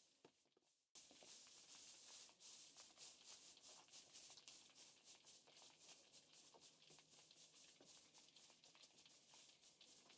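Faint rustling and crackling of dry straw being handled and spread as mulch over a garden bed, starting about a second in after a near-silent moment.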